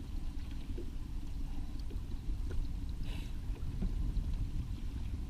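Boat motor running at trolling speed, a steady low rumble.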